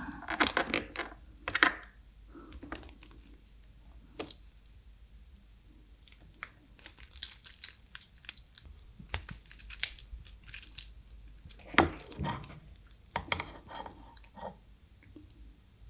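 Soy-marinated raw crab pulled apart and squeezed by hand, close up: the shell and legs crack and the soft meat squelches out, with chewing in between. The sound comes as irregular crackles in clusters, loudest about twelve seconds in.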